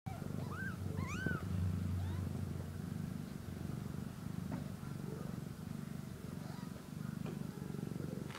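Black-and-white kitten purring steadily in a low, even rumble, with two short meows in the first second and a half.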